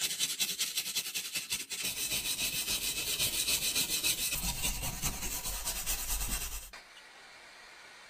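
Rapid, even scraping strokes on the rusty tin-plate body of a 1951 Sutcliffe clockwork toy submarine as the rust is worked off. The strokes stop near the end.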